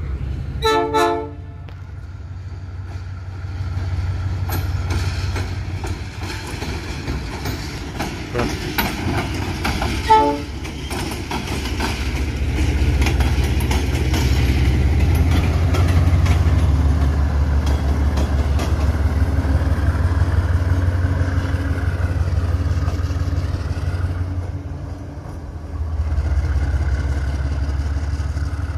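Pair of GE U20C diesel-electric locomotives passing close by, opening with a short horn blast. Their diesel engines rumble loudly as the units go by, with wheels clicking over the rail joints, then fade a little and swell again near the end as the second unit follows.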